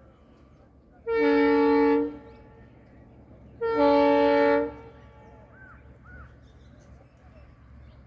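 WDP4D diesel locomotive's horn sounding two blasts of about a second each, a couple of seconds apart, over the low rumble of the approaching train.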